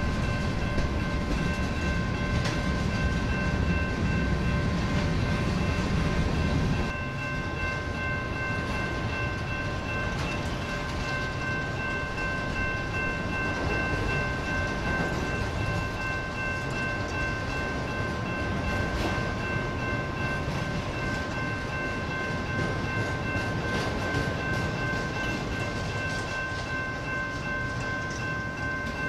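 Freight train cars rolling past at a grade crossing: a steady rumble of wheels on rail, heavier for about the first seven seconds and lighter after, under a continuous high ringing tone at several pitches.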